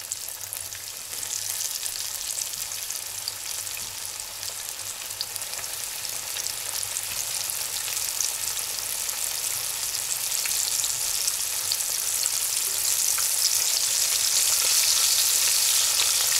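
Flour-dredged pieces of carp sizzling in hot oil in a frying pan, a dense hiss with scattered small crackles that grows steadily louder.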